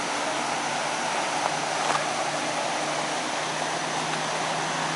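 Floodwater rushing past at high flood: a steady, even rush of water.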